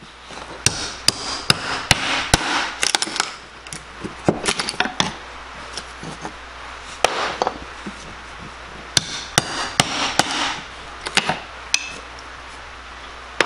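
Claw hammer striking a screwdriver driven like a chisel into nailed wood in a wall frame, breaking the pieces loose: sharp knocks in irregular bursts, several quick strikes at a time with short pauses between.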